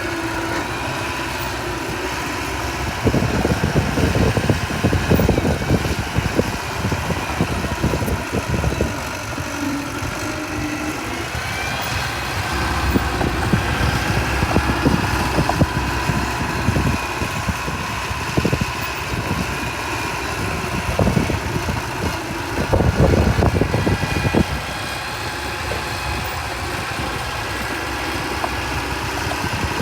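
Diesel engine of earthmoving machinery running steadily, with three stretches of heavier rattling and clatter as the machine works.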